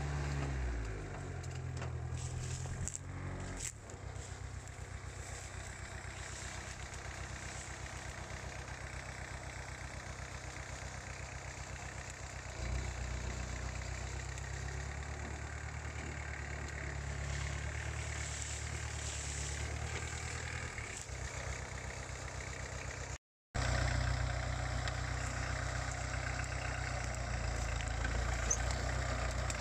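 Elpol K1 mini tractor's swapped-in VW Polo 1.4 diesel engine running as the tractor drives, towing a trailer. The revs drop about a second in and rise again about halfway through; after an abrupt break near three-quarters of the way in, the engine runs louder.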